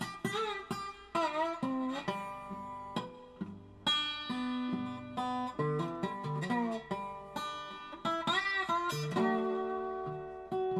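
Background music played on plucked guitar, with single notes plucked sharply and some bent up and down in pitch.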